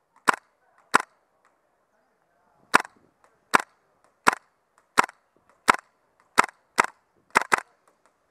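Airsoft gas-blowback rifle, a GHK G5, firing single shots as sharp pops: about eleven in all, mostly about 0.7 s apart, with a pause of nearly two seconds after the first two and a quicker pair near the end.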